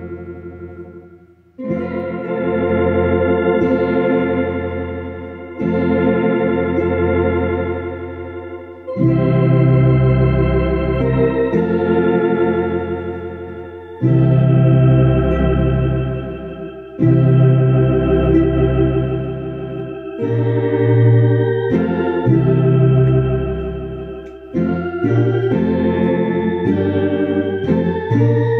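A hymn played on a two-manual electronic organ: full sustained chords over a low bass, in phrases of a few seconds each, the notes wavering slightly. The sound fades to a brief gap about a second and a half in, then the next phrase begins.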